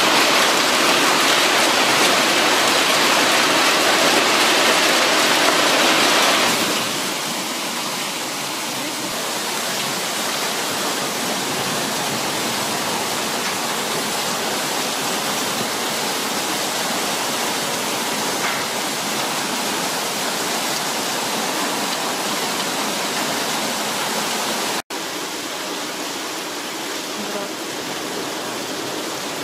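Hail and rain pouring down onto paving, a dense steady hiss. It eases somewhat about six and a half seconds in, and is broken once by a brief gap near the end.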